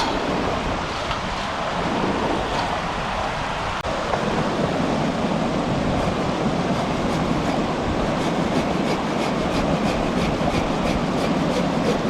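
River water rushing steadily, an even wash of noise.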